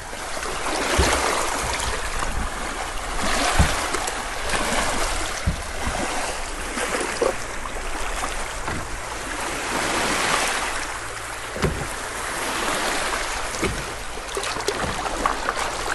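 Small Lake Huron waves lapping and washing over the pebbles at the water's edge, swelling and easing every few seconds, with a few short knocks.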